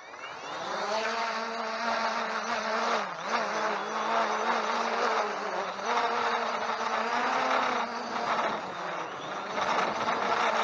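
Holystone HS700D quadcopter's propellers buzzing in flight, the hum swelling up in the first second and then wavering up and down in pitch as the motors work against the wind, with wind noise rushing over it.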